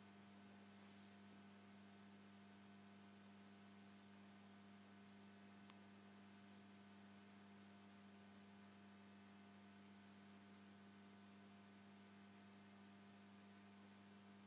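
Faint, steady mains hum from an idling valve amplifier with no music playing.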